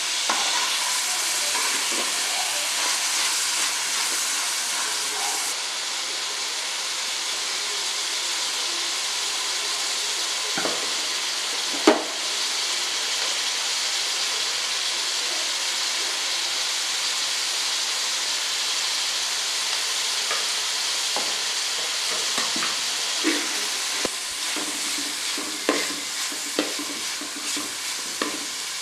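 Chopped cabbage, carrot and onion frying and sizzling in an aluminium pot while a metal ladle stirs and scrapes them. Sharp knocks of the ladle against the pot come through, the loudest about twelve seconds in, and they come more often near the end.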